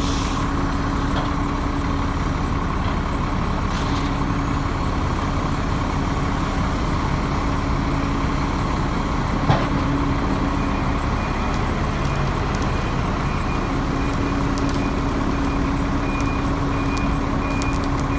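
Case 470B excavator's diesel engine running steadily as the machine works, with one short knock about halfway through. Faint, evenly spaced high beeps come in over the last few seconds.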